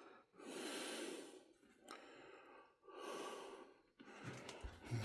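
A person breathing softly close to the microphone, two long breaths with a fainter one between, followed by a few light handling knocks near the end.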